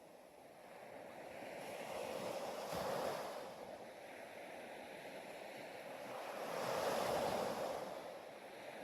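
Ocean surf: two waves swell in and wash back, the first cresting about three seconds in and the second about seven seconds in.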